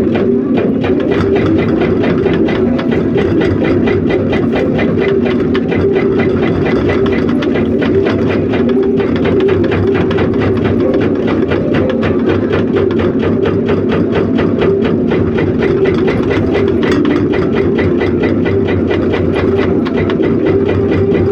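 Diesel engine of heavy quarry machinery running steadily, with a fast, even pulse.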